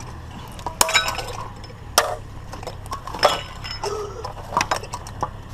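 Hard scrap items being handled and knocked together: a handful of sharp clinks and knocks, some with a brief ring.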